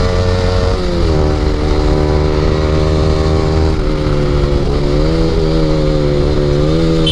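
Yamaha R15 V3 motorcycle's single-cylinder engine through an aftermarket Akrapovic exhaust, ridden at speed through bends. The revs drop about a second in, then hold steady with small rises and dips as the throttle is worked.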